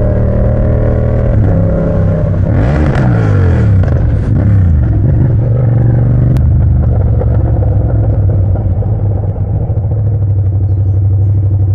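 Yamaha MT-07's parallel-twin engine running steadily through a short straight-pipe exhaust, loud and even. Between about two and five seconds in, another engine sound sweeps past, rising and falling.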